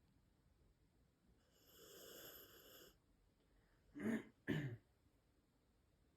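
Rottweiler puppy snoring in its sleep: a long wheezy breath about a second and a half in, then two short, louder snores half a second apart about four seconds in.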